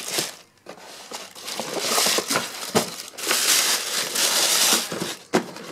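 Tissue paper in a cardboard shoebox crinkling and rustling as hands crumple and press it down, loudest in two stretches around two seconds in and from about three to nearly five seconds in, with a few light knocks of the shoes and box.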